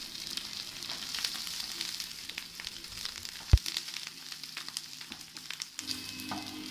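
Masala-coated chicken pieces sizzling and crackling in coconut oil with curry leaves and green chillies, stirred with a spatula in a frying pan. One sharp knock about three and a half seconds in.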